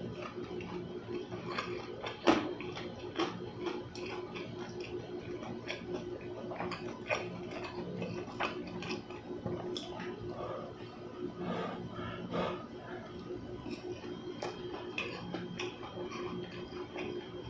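Close-miked eating sounds: chewing of chewy buckwheat crepe with irregular wet mouth clicks and a few sharper knocks, over a steady low hum.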